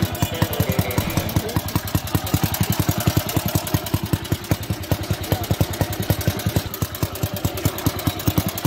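Vintage motorcycle engine idling with a steady, even beat.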